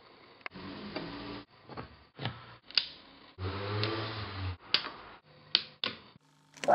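Sharp clicks of audio plugs being pushed in and rocker power switches being pressed on DJ gear and active PA speakers, cut together in short pieces with brief stretches of low electrical hum and hiss from the powered-up equipment. Loud music starts right at the end.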